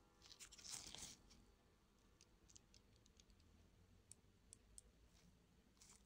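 Near silence with a brief faint scratchy rustle just under a second in and scattered faint ticks after it: small hand tools handling the internals of an opened smartphone.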